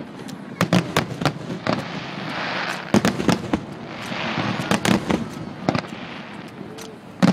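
Professional display fireworks: an irregular string of sharp bangs from bursting shells and mines, with a hissing rush that swells twice in the middle.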